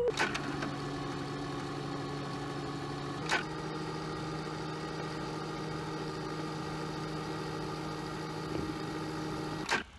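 VCR fast-forwarding a VHS tape: a steady mechanical whir with a hum, cut off suddenly near the end. Short clicks mark its start, a moment about three seconds in, and its stop.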